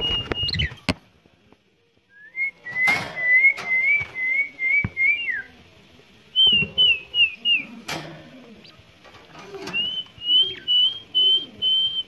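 Three runs of warbling whistles, each a fast wavering note held near one pitch for a second or more, the first ending in a downward slide. A few sharp clicks and soft low warbling sounds come between and beneath them.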